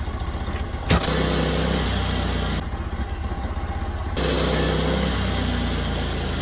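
Sawmill's engine running with an even putter; a sharp click about a second in, then the engine picks up speed twice, for about a second and a half and then about a second, dropping back between.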